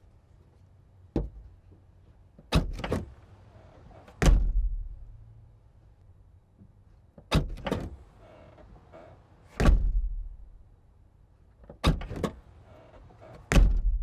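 Chevrolet Volt rear liftgate opened and shut three times, heard from inside the cargo area. Each time the latch releases with a sharp double click, and about two seconds later the hatch is slammed closed with a heavy, low thump.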